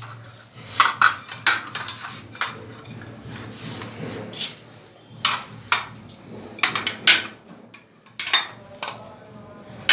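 About a dozen irregular metallic clinks and knocks from metal shower-fitting parts being handled and set in place, as the body jet's frame is fitted over the wall nipple.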